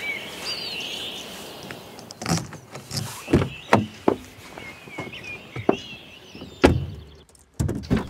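Birds chirping, with a string of sharp knocks and clicks from a car door being handled as someone gets into the car; the loudest knock comes about two-thirds of the way through.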